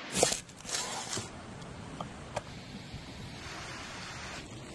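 A cleaver crushing a garlic bulb on a wooden board, with a short crackle and crunch in the first second. After that comes a steady outdoor hiss with a couple of light clicks.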